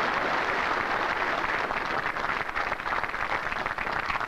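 Crowd applauding. Partway through, the clapping thins out, so that single claps stand out.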